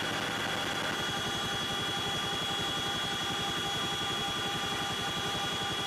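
CH-47 Chinook heard from inside its cabin in flight: a steady, rapid beat from the rotors, with a constant high whine from the drive system above it.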